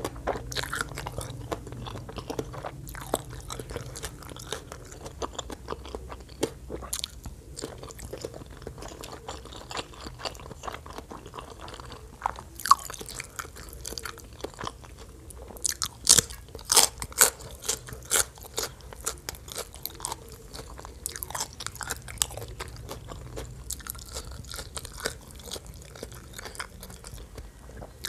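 Close-miked eating sounds of green papaya salad and raw vegetables: wet chewing with many crisp crunching bites, a run of louder sharp crunches about halfway through.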